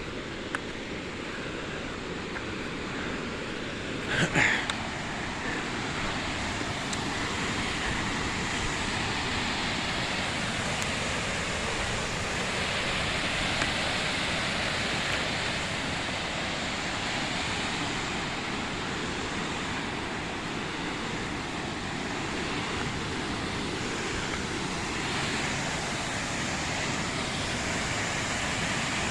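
Steady rushing noise of a waterfall, growing slightly louder a few seconds in. A short, louder noise sounds once about four seconds in.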